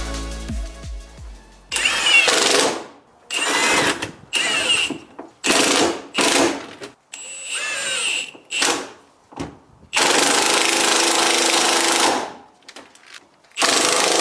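Milwaukee M18 cordless impact wrench hammering strut top-mount bolts tight. It runs in about eight short bursts with pauses between, and the longest burst, about two seconds, comes near the end.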